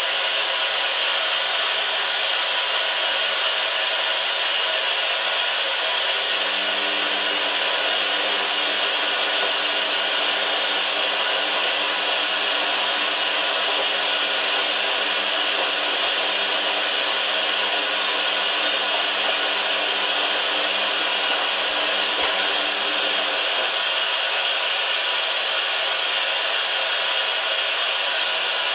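Hoover washing machine running with a steady, even hiss, and a faint low hum joining in from about six seconds in until about five seconds before the end.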